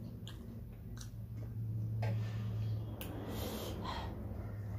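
Close-up eating by hand: a few small sharp clicks of mouth and fingers, and noisy breaths about two seconds in and again a little past three seconds, over a steady low hum.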